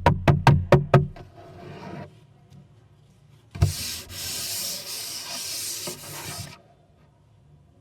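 A quick run of about six sharp wooden knocks, then a thump and wood sliding against wood with a steady rubbing hiss for about three seconds, as a part of the desk's hidden compartment is moved.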